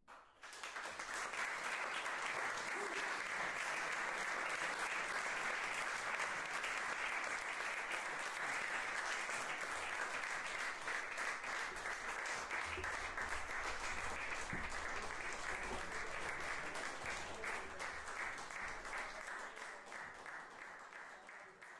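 Audience applauding, breaking out suddenly and holding steady before slowly dying down near the end.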